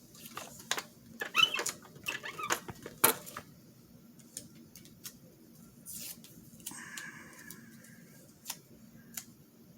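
Paper being handled and torn, with rustling and tearing over the first three seconds ending in a sharp snap. About seven seconds in there is a short higher-pitched squeak, followed by a few small clicks.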